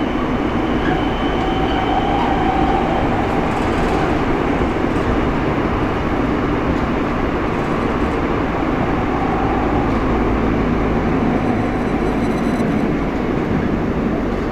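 Steady interior running noise of a Seoul Metro Line 8 8000-series first-batch car (GEC Alsthom GTO-VVVF) travelling at speed between stations. It is a continuous rumble of wheels on rail with no stops or sudden events.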